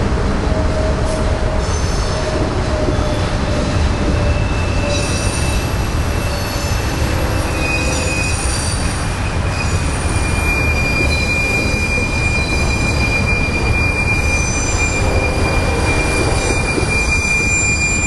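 Union Pacific autorack freight train rolling past, its wheels giving a steady loud rumble on the rail. High-pitched wheel squeal comes and goes over it, and a single steady squeal sets in about ten seconds in and holds.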